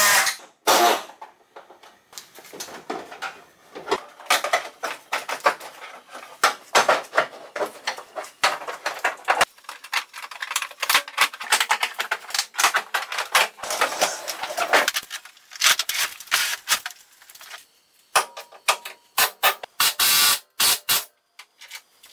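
Hand-tool work on a pickup's bed as it is being unbolted for removal: a dense, irregular run of sharp clicks and knocks, with a few louder bursts near the end.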